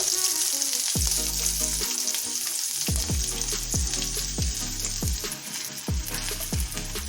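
Small shallots and green chillies frying in hot oil with popped mustard seeds, giving a steady sizzle as they are stirred in the pan.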